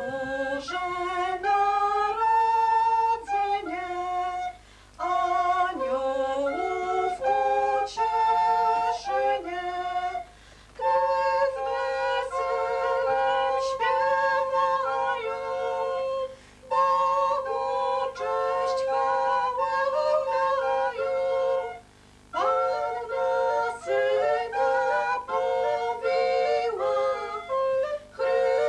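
Recorder consort playing a Renaissance Christmas carol in several parts, in phrases of a few seconds with four short pauses between them.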